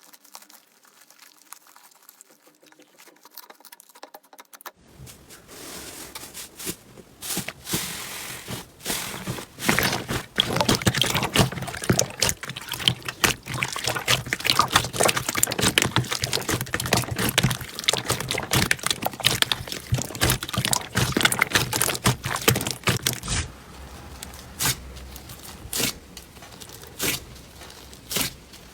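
Slime being squeezed and poked by hand, making wet, crackling clicks and pops. It is quiet at first, then turns dense and busy after a few seconds, and near the end thins to a few separate pops.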